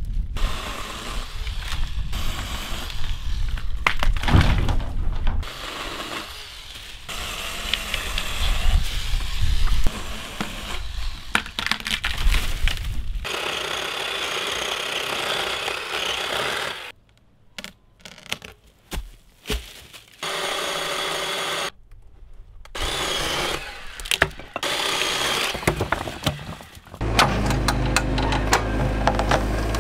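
Greenworks battery pole saw and a handheld battery chainsaw cutting dry walnut wood in bursts, with knocks and cracks of wood. The saw's motor starts and stops several times. Near the end this gives way to a steady low engine hum from a mini excavator.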